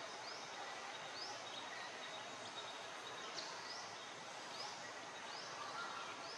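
Forest ambience: a steady hiss of background noise, with a short high rising call repeated about once a second.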